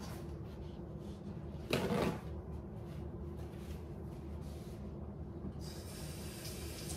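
A short knock, like a cupboard door, about two seconds in, then a kitchen faucet starting to run faintly about five and a half seconds in, over a steady low room hum.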